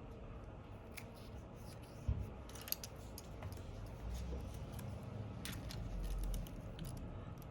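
Light clicking and snipping of small hand tools working on a smartphone's internals, with a sharp knock about two seconds in and a low rumble of handling from about four to six seconds.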